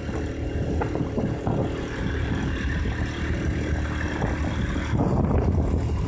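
Motorcycle engine running steadily at riding speed, heard from the rider's seat, with a constant low rumble under it.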